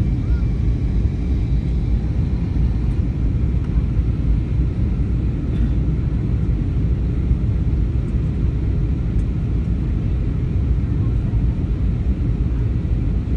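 Steady low drone of a passenger airliner heard from inside the cabin: engine and airflow noise, unchanging throughout.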